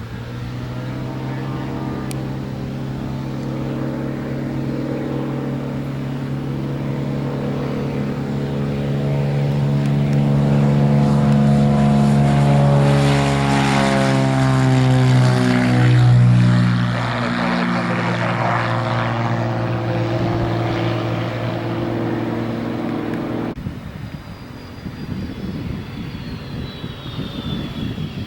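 Propeller airplane engine passing close by. Its drone grows louder, then drops in pitch as it goes past, and cuts off abruptly about two-thirds of the way through, leaving a quieter background.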